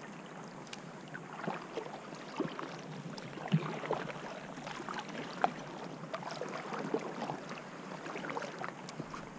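Seawater lapping and splashing against a sea kayak's hull and paddle, with irregular small splashes a few times a second.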